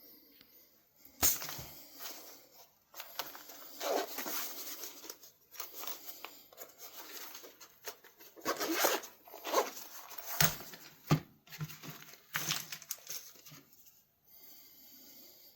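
Irregular scraping and rubbing strokes from hand work on a pocket knife blade, with a few sharp clicks or knocks about a second in and again around the tenth and eleventh seconds.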